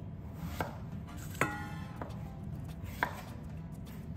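Chef's knife peeling the skin off a piece of breadfruit on a wooden cutting board: three sharp knocks of the blade against the board, the second with a short ringing after it.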